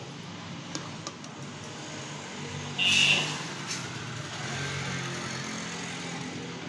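Metal spatula stirring and scraping thick corn halwa in an aluminium kadai, with a couple of light taps about a second in, over a steady low hum. A brief shrill sound, the loudest thing here, comes about three seconds in.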